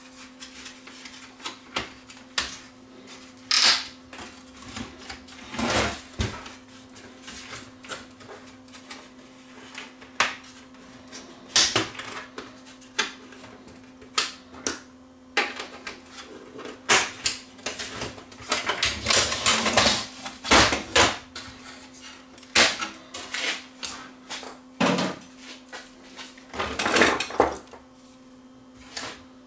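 Scattered clicks, knocks and scrapes of a VCR's plastic cabinet and metal chassis being handled on a workbench: the machine tipped on its side and set back down, screws worked with a screwdriver. A faint steady hum runs underneath.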